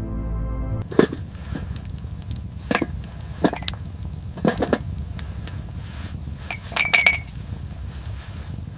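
Background music cuts off about a second in. Then a hard object clinks and knocks against another about eight or nine times, in uneven pairs. Near the end a strike rings briefly.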